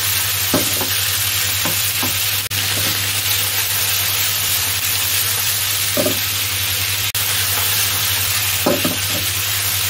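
Chicken pieces, carrots and mushrooms sizzling in a hot nonstick wok as they are stir-fried and tossed with a wooden spatula, with a few short knocks of the spatula and food against the pan.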